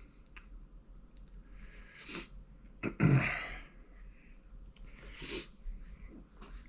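A man breathing out hard in short noisy gusts through a mouth burned by Carolina Reaper pepper heat. There are three bursts, about two, three and five seconds in, and the one about three seconds in is a sudden loud blast of breath.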